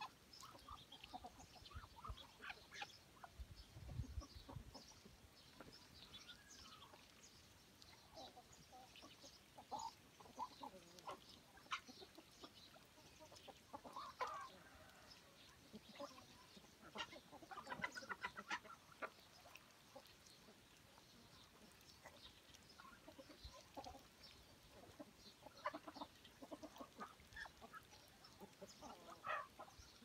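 Chickens clucking softly: short, scattered calls, with a denser flurry about halfway through.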